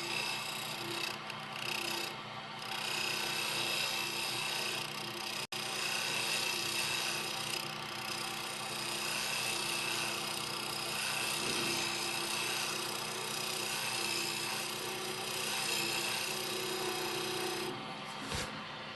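Wood lathe running, with a turning tool held against the spinning wooden sphere: a steady scraping cut over the motor's hum. The cut is truing up the outside to take out a wobble, so the piece won't be out of balance.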